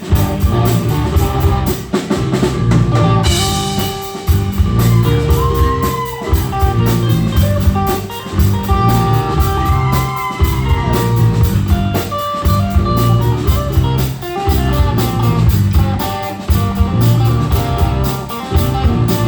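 Rock band playing live: guitar, bass, keyboard and drum kit in an instrumental stretch between sung verses.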